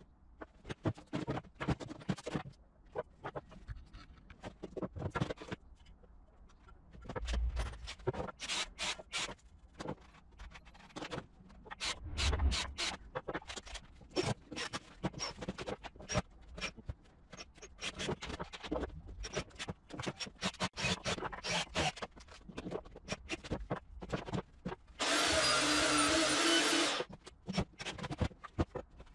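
Woodworking handling noise: wooden boards and tools knocked, scraped and set down in many short clacks, with a few heavier thumps. Near the end a power tool runs steadily for about two seconds.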